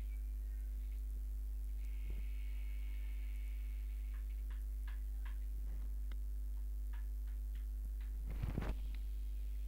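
Steady low electrical hum, with faint scattered ticks and a short cluster of louder knocks about eight and a half seconds in.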